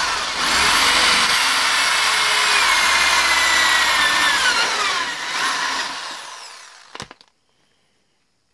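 Electric drill boring a hole through a wooden beam for an LED bezel. The motor's whine drops in pitch between about three and four seconds in, then the sound fades away over the next two seconds. A single sharp click follows.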